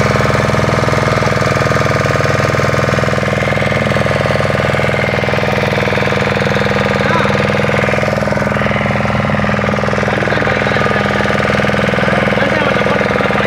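Boat engine running steadily at a constant speed, with a fast, even knocking beat.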